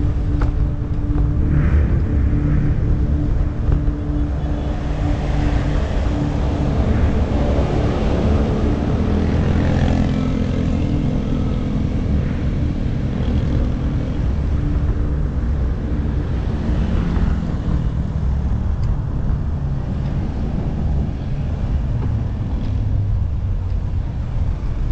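Steady low rumble of wind and road noise on a bicycle-mounted action camera riding along a busy street, with the engines of passing cars and motorcycles mixed in. A steady engine hum holds for about the first half, then fades.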